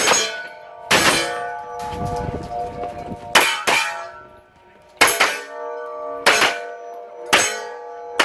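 A string of about seven gunshots spaced roughly a second apart, each followed by a steel target plate ringing on being hit.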